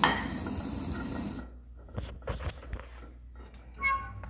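Handheld gas torch hissing as it lights the kindling, cut off abruptly about a second and a half in. A few light knocks follow, then a short ringing clink near the end.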